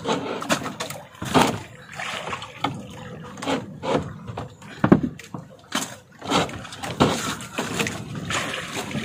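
Fish being handled in and over a plastic icebox on a wooden boat: irregular knocks, thuds and wet handling noises.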